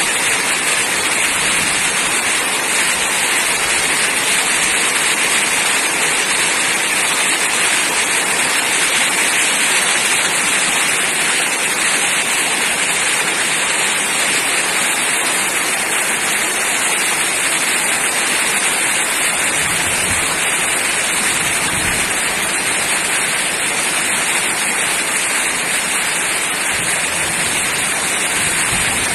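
Heavy rain falling steadily: a loud, even hiss of raindrops with no break.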